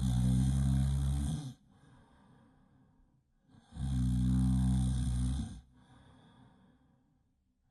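A person snoring, really loud: two long, low snores about four seconds apart, each followed by a quieter breath.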